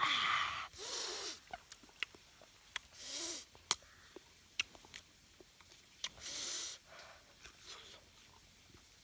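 A person eating, with four loud breathy hisses of air drawn or blown through the mouth and many small sharp mouth clicks and smacks between them, as someone does eating food hot with chili.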